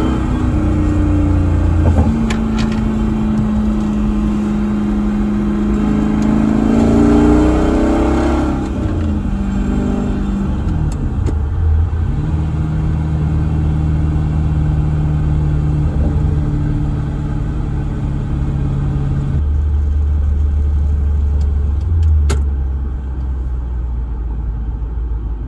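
Car V8 engine and exhaust running under way. It revs up about seven seconds in, drops back, then runs steadily at lower revs, changing abruptly to a deeper note near the end.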